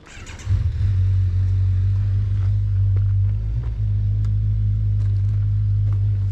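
BMW R1200GS Adventure's flat-twin boxer engine starting, catching about half a second in and settling into a steady idle.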